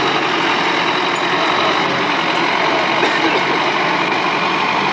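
An off-road 4x4's engine running steadily as it crawls through a ditch, with spectators' voices mixed in.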